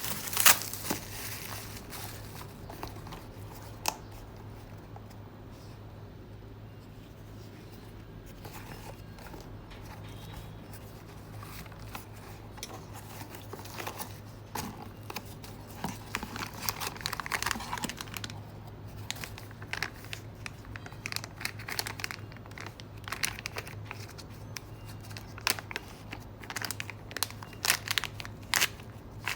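Unboxing: packaging wrap being handled and unwrapped, with on-and-off crinkling and tearing and scattered small clicks. A quieter stretch in the first half gives way to busier crinkling later, over a low steady hum.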